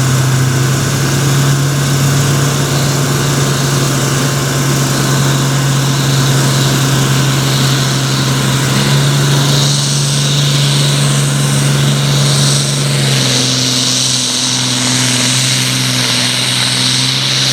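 Farm tractor's diesel engine running hard under full load, pulling a weight-transfer sled down the track. Its note holds steady, then drops slightly about 13 seconds in.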